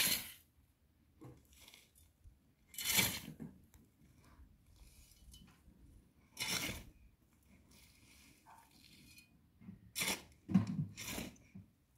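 A pick struck repeatedly into dry, stony soil, each blow a short crunch of metal biting into gravel and earth. About six strikes, spaced a few seconds apart, then three in quick succession near the end.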